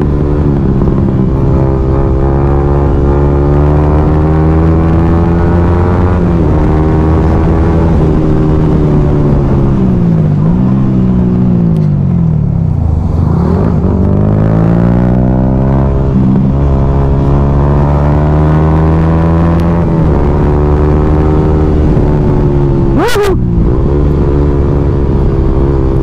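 Yamaha motorcycle engine running steadily under way in third gear, its pitch dipping as the revs drop about ten seconds in and then climbing again as it accelerates out of the bend.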